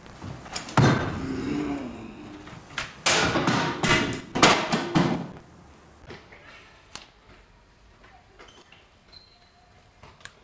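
Loud, drawn-out human vocal sounds, shouts or exclamations, about a second in and again from about three to five seconds in, mixed with sharp knocks. Afterwards only faint scattered clicks.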